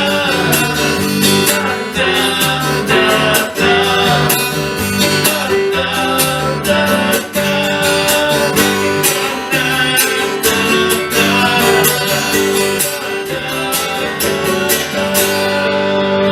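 Music: an acoustic guitar strummed in a steady rhythm. Near the end the strumming stops, leaving held notes ringing.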